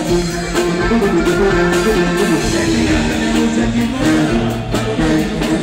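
Live Mexican corrido band playing an instrumental passage: a horn melody of held notes over a tuba bass line, with guitar and drums, loud and continuous.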